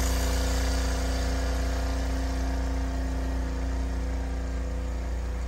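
Ariens RapidTrack Platinum 28" SHO two-stage snowblower's single-cylinder engine running steadily, growing slightly quieter over the few seconds.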